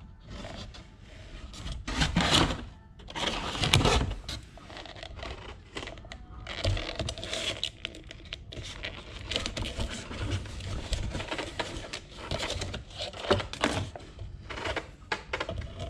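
Plastic takeaway food tubs and a cardboard box being handled: irregular scraping and rustling, loudest about two seconds in and again near four seconds.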